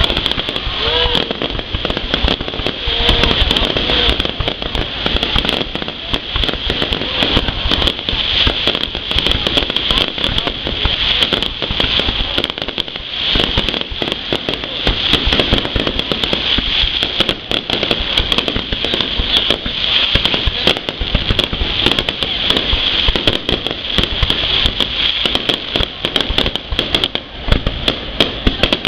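Fireworks going off without pause: a dense, continuous crackle of rapid pops, with people's voices faintly underneath.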